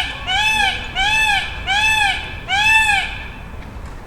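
Peacock calling in a fast series of loud, wailing calls, each rising then falling in pitch, about four in a row, stopping about three seconds in. A low, steady background hum of the park continues underneath.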